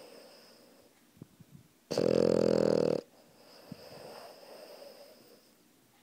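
A sleeping French bulldog–Boston terrier mix puppy snoring: one loud, buzzing snore about two seconds in that lasts about a second, followed by a softer, longer breath.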